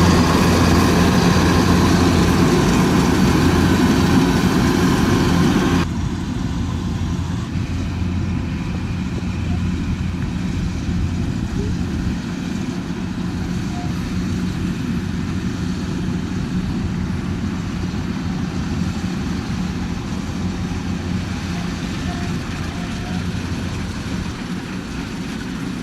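Harvesting machine's engine running steadily. It is louder and brighter for the first six seconds, then cuts abruptly to a quieter, duller engine drone.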